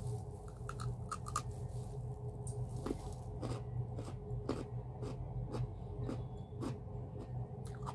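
A person chewing a crisp piece of raw carrot close to the microphone, with irregular crunching clicks about every half second. A steady low hum runs underneath.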